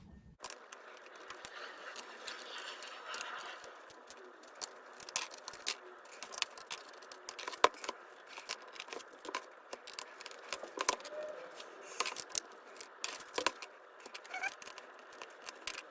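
Small metal screws and a Phillips screwdriver clicking and ticking irregularly as screws are worked out of a plastic laptop base and set down one by one, over a faint steady hiss.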